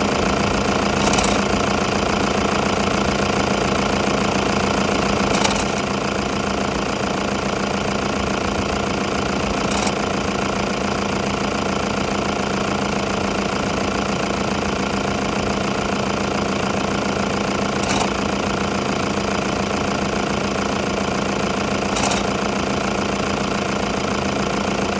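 Toyota Hiace KDH206V diesel engine idling steadily, with a fine, faint ringing from the timing-belt auto-tensioner. The noise persists with a new timing belt and tensioner fitted, and the owner suspects a defective part. A few sharp clicks sound several seconds apart.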